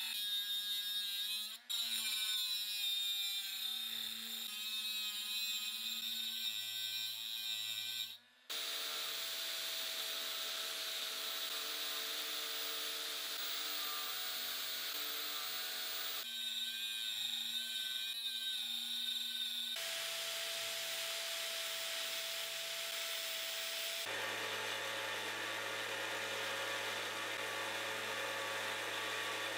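Electric power tools running steadily with a motor whine, in several short clips that change abruptly, each at a slightly different pitch.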